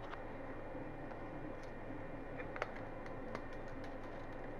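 Creality CR-10 3D printer running mid-print: a steady hum from its fans and stepper motors, with a few faint clicks.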